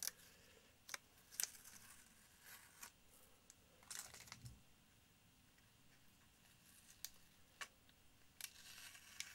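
Masking tape being peeled off a painted model aircraft by hand: faint, scattered short crackles and rustles, more of them close together near the end.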